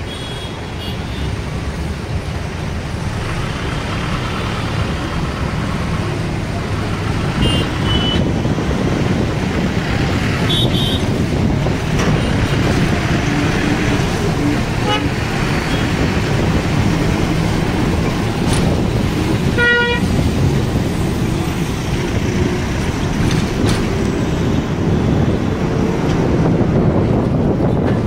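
City bus in motion: engine rumble and road and traffic noise, growing louder over the first several seconds. Short vehicle horn toots come several times, the clearest about two-thirds of the way in.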